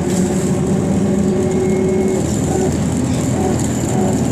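Inside a BKM 221 trolleybus under way: steady running noise with the electric drive's low hum, which fades out about two and a half seconds in.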